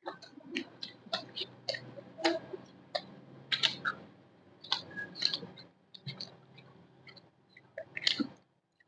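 A person eating close to the microphone: irregular crunching, chewing and wet mouth clicks, a few to the second.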